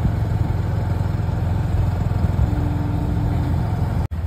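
Motorcycle engine running steadily at cruising speed while riding, with a brief break in the sound near the end.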